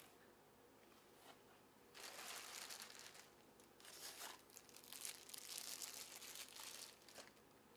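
Plastic packaging crinkling as it is handled, in several bursts starting about two seconds in and stopping near the end.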